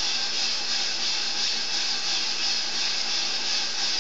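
Coffee roaster running partway through a roast, making a steady hiss with no breaks or changes.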